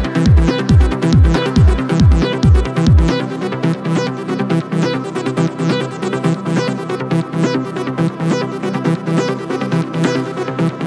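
Electronic trance-style background music. A steady kick drum beats about twice a second, then drops out about three seconds in, leaving synths and fast hi-hat ticks.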